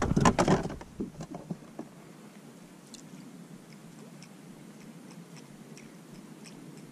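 A quick run of knocks and clicks as gear is handled on the fishing boat in the first second, then quiet: a low steady hum with faint light ticks every half second or so.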